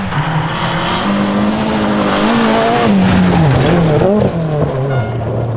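Rally car engine on a gravel stage, loud and held high for about two seconds, then the pitch drops and swings up and down several times as the driver lifts, blips and changes gear, settling lower near the end, with tyre and gravel noise underneath.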